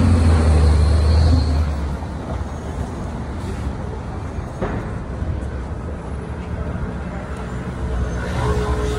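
City street traffic: a vehicle engine's low rumble, loudest for the first second and a half, then fades into a steady traffic hum, with a single sharp click about halfway through.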